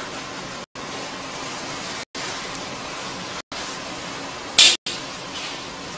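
Steady hiss of background noise with brief drop-outs to silence every second or so. A short, loud burst of hiss comes about four and a half seconds in.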